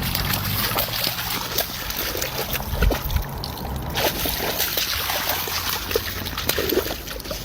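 Water splashing and sloshing, with many small irregular splashes throughout.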